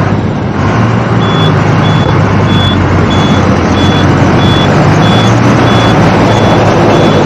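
Heavy tanker lorry driving at highway speed: a loud, steady rumble of engine, tyres and wind. From about a second in, a short high beep repeats a little under twice a second, like a cab warning or indicator beeper.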